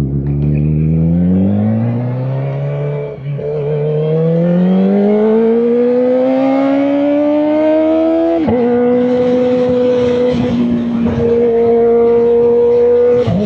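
Kawasaki Ninja ZX-4RR's inline-four engine accelerating hard through the gears: the revs climb, dip at an upshift about three seconds in, climb again for about five seconds, then after another upshift hold steady at high revs, with a further shift near the end.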